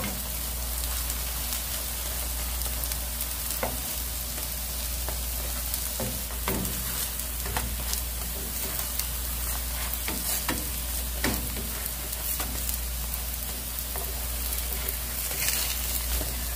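Potato pancakes sizzling steadily in oil in a frying pan, with scattered short clicks of a spatula and utensil against the pan as they are turned and pressed.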